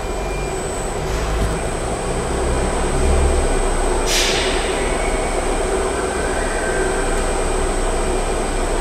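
Steady workshop background noise: a low rumble with a thin, constant high whine, and a short hiss about four seconds in.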